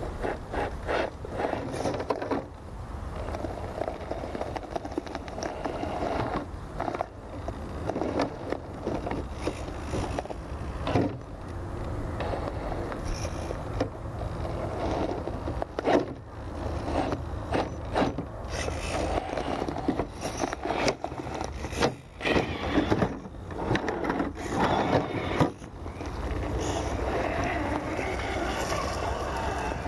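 Axial SCX10 II 1/10-scale RC crawler working its way over tree bark: its electric motor and geared drivetrain whir in stop-start bursts while the tyres scrape and grip on the wood. Frequent sharp clicks and knocks come from the wheels and chassis hitting the stump.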